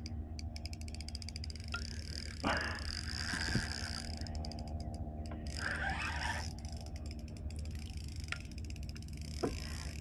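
Spinning fishing reel clicking in runs of rapid, even ticks while a hooked fish is played on light tackle, with a few single soft knocks.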